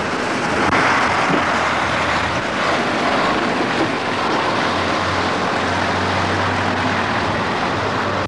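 Steady street and traffic noise with no speech, swelling briefly about a second in. A low motor-vehicle engine hum runs through the second half.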